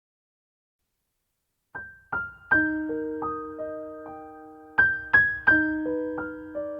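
Silence, then slow solo piano music beginning about two seconds in, with single notes and chords struck and left to ring.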